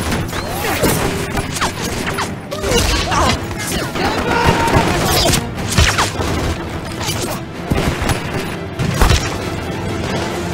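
Scattered rifle gunfire and sharp impacts, with music underneath.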